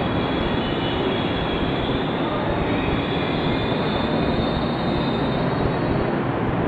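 KRL electric commuter train running at the station, a steady rumble heard from inside the underpass, with a faint high wheel squeal in the middle.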